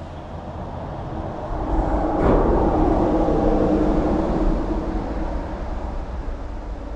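A vehicle passing by, building to its loudest about two seconds in and then slowly fading.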